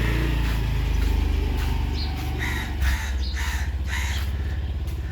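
A motor scooter's engine running with a steady low hum, while crows caw several times between about two and four seconds in.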